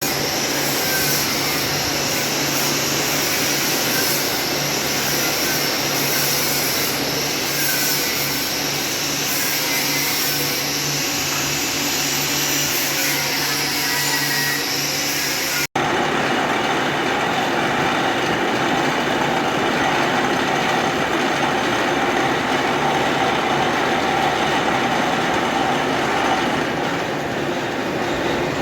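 Lathe running and cutting mild steel: a loud, steady machine noise with a low hum and thin, sliding high squeals. The noise changes abruptly about halfway through.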